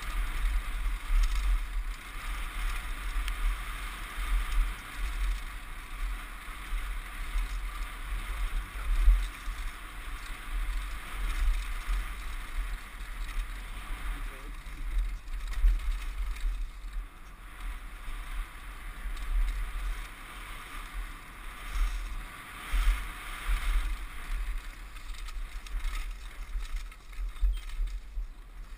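Mountain bike riding fast down a woodland dirt trail: tyres running over dirt and the bike rattling over bumps, with wind buffeting the microphone in an uneven low rumble.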